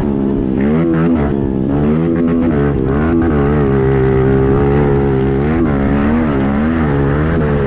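Pit bike engine being ridden hard, its pitch climbing and dropping again and again with throttle and gear changes, holding steady for a couple of seconds mid-way.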